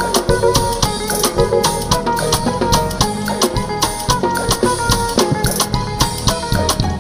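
Live concert music without vocals: a quick, busy drum and percussion beat under melodic instrument lines.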